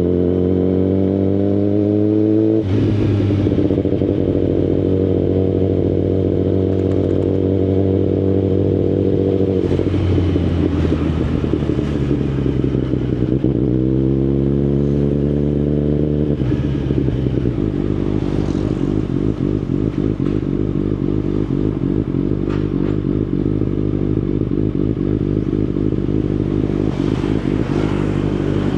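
Kawasaki Ninja ZX-10RR inline-four engine through an Akrapovic Evolution full exhaust system, pulling away and riding at low speed. The engine note climbs and then drops sharply as it shifts up, about two and a half seconds in and again about sixteen seconds in, running steadily between.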